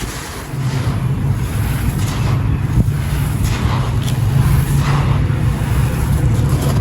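Dry clay pot pieces being crumbled and crushed, with a faint gritty crackle. A low, steady rumble comes in about half a second in and is the loudest sound.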